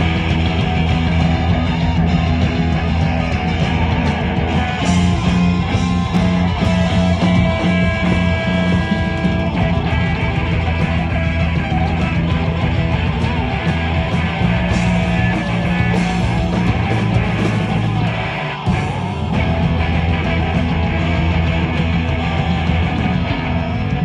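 Live punk rock band playing loud, led by distorted electric guitar over bass and drums, with no vocals. The sound dips briefly about three-quarters of the way through.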